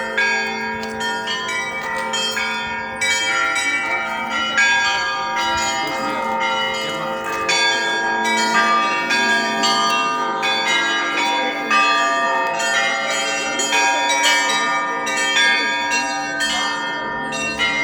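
Russian Orthodox monastery bells ringing in a fast, unbroken peal: many bells struck one after another, the small bells in quick strikes over the long hum of the larger bells.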